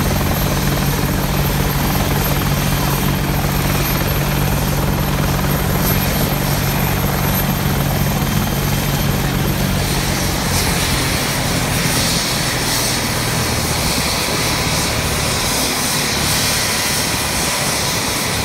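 AH-64 Apache helicopter running on the ground, its twin turboshaft engines and main rotor giving a steady low rotor drone. About ten seconds in, the low drone and a thin high whine weaken while a hiss grows stronger.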